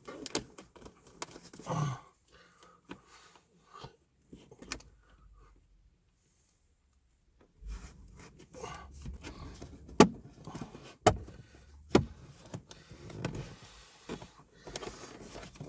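Handling noises inside a car cabin: rustling and scraping with scattered sharp clicks and knocks, as a dash cam power cable is pushed into the headliner and plastic trim. It falls quiet for a couple of seconds in the middle, then several louder sharp knocks follow.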